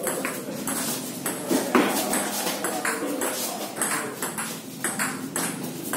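Table tennis rally: the ball clicks off the bats and the table back and forth, at about two clicks a second.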